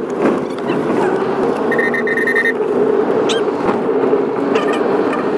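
Steady road and engine noise inside a moving Honda car, with a short high tone about two seconds in.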